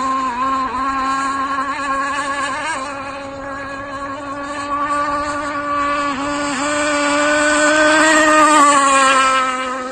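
Zenoah 29.5 cc two-stroke gas engine of an RC rigger boat running flat out, a steady high-pitched drone with a few brief dips in pitch. It grows louder and slightly higher as the boat passes close about eight seconds in, then drops and fades as it moves away.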